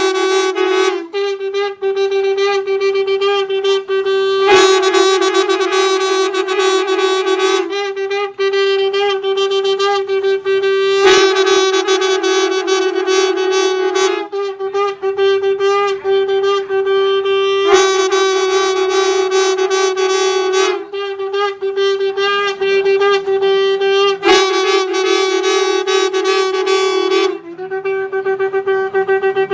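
Valampuri conch shells blown together in long, steady blasts on one pitch, each held several seconds with short breaks between. A sharp stroke cuts in about every six or seven seconds.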